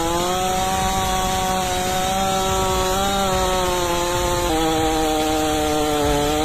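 Holzforma G888 122 cc two-stroke chainsaw running at full throttle, holding a steady high pitch. Its pitch steps down slightly about four and a half seconds in.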